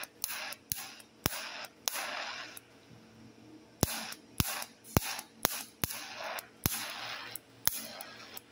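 Argon TIG welding arc: sharp crackling clicks, roughly two a second and unevenly spaced, each with a short hiss after it, and a quieter stretch about three seconds in.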